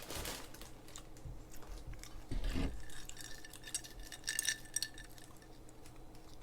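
Light clinks and knocks of glass and tableware on a table, with a dull thump about two and a half seconds in and a cluster of small ringing clicks near the middle.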